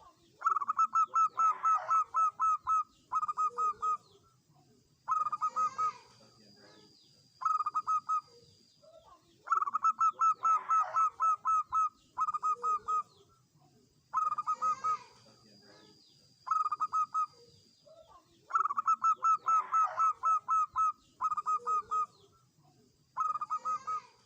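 Zebra doves cooing: repeated phrases of rapid staccato coos, a new phrase every couple of seconds, with some phrases overlapping as if from more than one bird.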